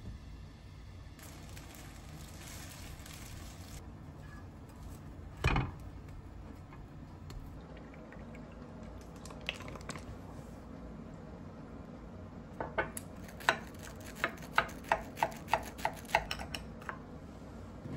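Serrated knife sawing through a toasted sandwich, a quick run of crisp, crunchy strokes in the last few seconds. Earlier there is one loud thump about five and a half seconds in and a soft hiss near the start.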